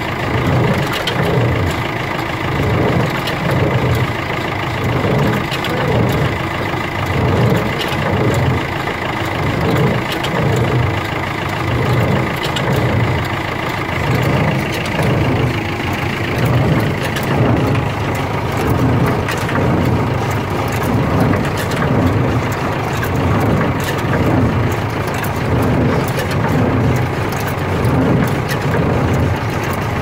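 David Brown Albion square baler running empty, driven by a tractor, with the tractor engine running steadily underneath. The baler's mechanism beats regularly, about once a second.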